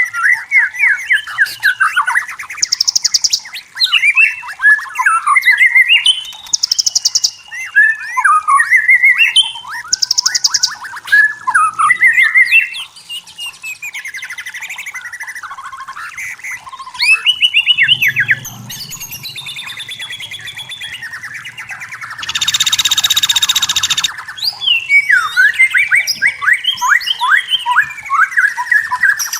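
White-rumped shama singing: a run of rapid, varied whistled phrases and quick chattering trills with short pauses between them. About three-quarters of the way through, a loud, harsh buzzy note lasts about two seconds.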